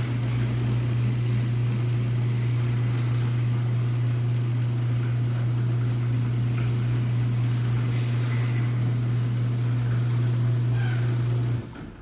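Garage door opener motor running as the door opens: a steady, deep hum at an even level that stops suddenly near the end as the door reaches fully open.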